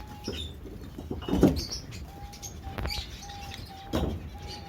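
Birds in a bird shed calling: repeated short chirps, with two louder, lower coo-like calls about a second and a half in and again near the end.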